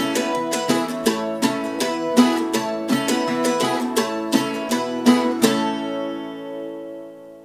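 Mandolin, banjo and acoustic guitar playing the closing bars of a folk tune with a quick picked rhythm, then a final chord struck about five and a half seconds in and left to ring and fade away.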